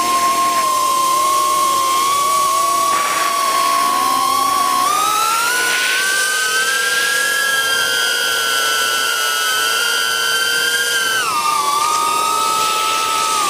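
FPV drone's electric motors and propellers whining close to the onboard camera. The pitch rises about five seconds in as the throttle is pushed up, holds, then drops back a little before the end.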